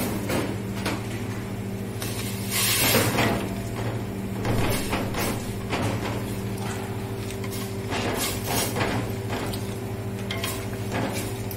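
A metal ladle stirring vegetables in a stainless steel pot, scraping and clinking against the pot in irregular strokes, loudest about three seconds in, over a steady low hum.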